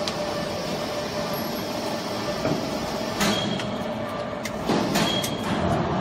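A small household baler running with a steady mechanical hum. Several sharp metal clicks and clanks come in the second half.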